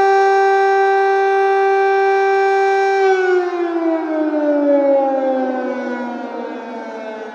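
Civil defense air raid siren sounding a steady, loud tone for about three seconds, then sliding down in pitch and growing quieter as it winds down.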